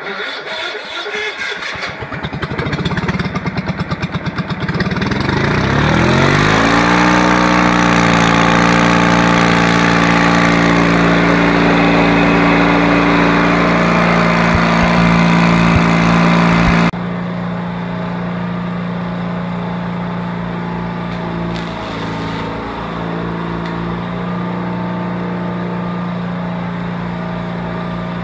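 Engine of an engine-driven welder cranking over in cold weather on a jump-started battery, catching about five seconds in and revving up to a steady run. About 17 seconds in the sound drops abruptly to a quieter, steady running.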